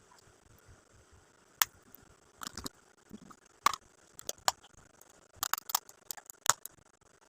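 Gift-box packaging being handled and opened by hand: about a dozen irregular sharp clicks and snips, some in quick clusters.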